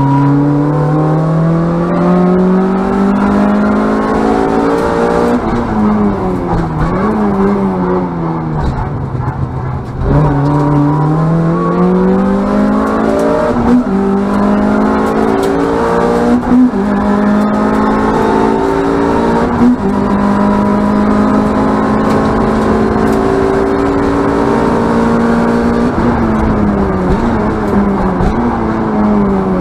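Ford Fiesta ST race car's engine heard from inside the cabin, pulling hard up through the gears: the pitch climbs steadily and drops sharply at each upshift. About five seconds in it falls away under braking, with a few quick throttle blips on the downshifts, then climbs through the gears again.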